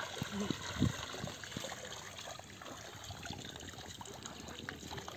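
Water sloshing and trickling as a person rises and wades through shallow muddy water, with a few heavy sloshes in the first second, then steady dripping and trickling.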